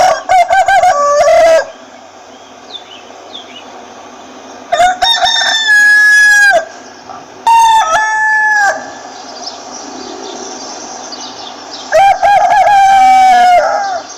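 Rooster crowing four times, each crow a loud drawn-out call, with hens clucking faintly between the crows.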